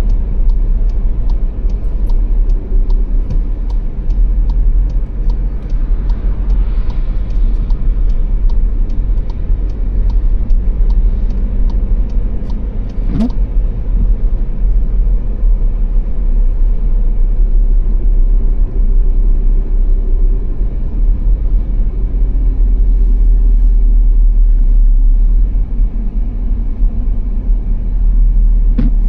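Car on the Autobahn heard from inside, with steady low road and engine rumble. A regular ticking of about three a second runs through the first half and then stops.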